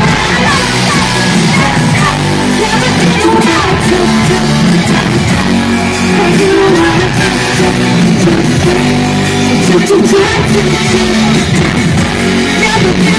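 Loud live pop-rock music from a band over a concert sound system, with guitar and singing.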